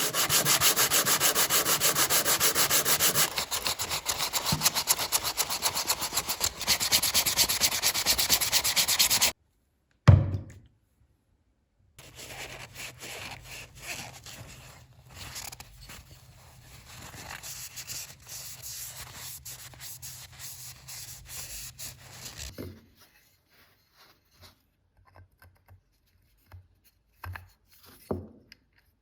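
Hand sanding during a saw restoration: fast, even back-and-forth abrasive strokes for about nine seconds. It stops abruptly, a single thump follows, then quieter rubbing strokes over a low hum, and it ends in a few light knocks and handling noises.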